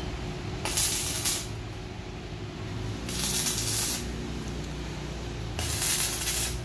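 Electric arc welding on steel motorcycle sprockets: three short bursts of hissing, each about a second long, over a steady low hum.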